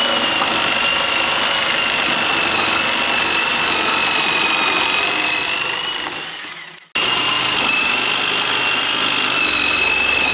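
A power tool running steadily with a high whine; the sound fades, cuts out for an instant about seven seconds in, and comes straight back.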